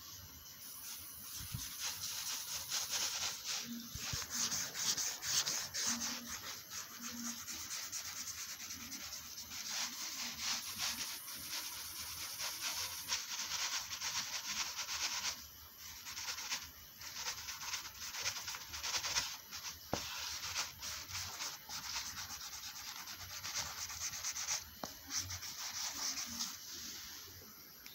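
Graphite pencil shading on drawing paper: quick back-and-forth strokes scratching across the sheet, with a brief pause about halfway through and another near the end.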